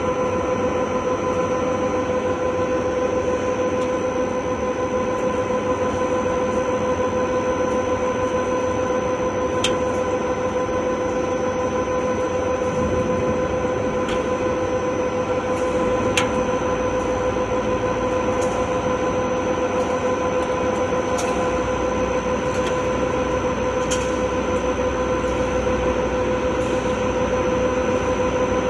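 CNC lathe turning a metal shaft: the spindle and chuck run steadily with a constant whine over machine noise, and a few sharp clicks come through.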